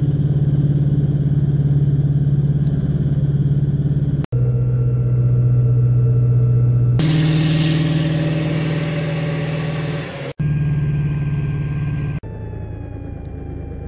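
AAV7 amphibious assault vehicle's diesel engine droning steadily as it swims at sea. The drone breaks off and resumes abruptly a few times at a slightly different pitch, a loud hiss joins it for about three seconds midway, and it is quieter near the end.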